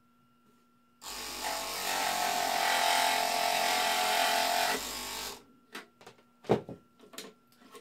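Mini jigsaw (a gourd saw) switched on and running with a steady buzz as its fine blade cuts through a small tab in a thin wood sheet, stopping after about four seconds. It is followed by a few light knocks and one sharper thump as the cut part is handled and freed.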